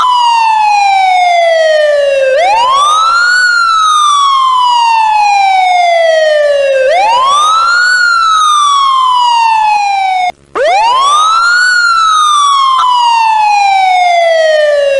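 Loud wailing siren, each cycle rising quickly in pitch and then falling slowly, repeating about every four and a half seconds. It cuts out briefly about ten seconds in and starts a new rise at once.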